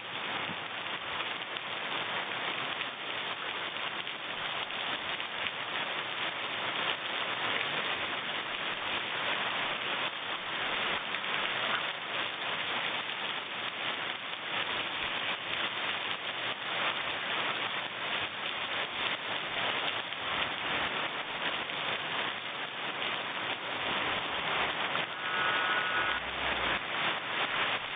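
Heavy rain pouring steadily onto a garden lawn, leafy plants and puddles: a dense, even hiss of drops that swells slightly toward the end.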